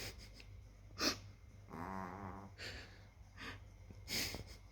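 A tiny dog snoring in its sleep: one buzzing snore about two seconds in, between short puffs of breath about a second in and near the end.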